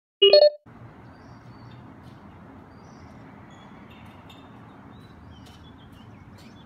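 City background: a steady low hum of distant traffic with faint bird chirps scattered through it. It follows a short loud pitched sound at the very start.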